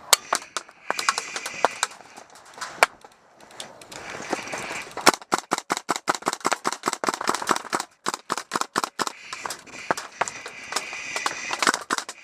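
Airsoft guns firing: sharp snapping shots, a few scattered ones at first, then a rapid string of several shots a second from about five seconds in, thinning out again toward the end.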